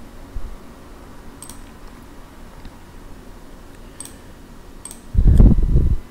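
A few sharp computer-mouse clicks spaced a second or more apart. Near the end comes a loud, low, muffled bump on the microphone lasting under a second.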